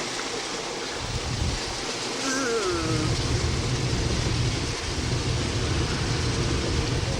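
Car interior noise while driving: a steady low road and engine rumble under a hiss, the rumble growing heavier about a second in.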